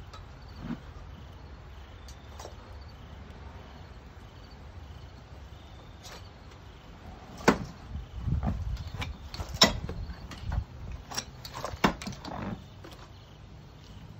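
Several sharp knocks and clacks in the second half, the loudest three about seven and a half, nine and a half and twelve seconds in, among low thuds of footsteps on a rug.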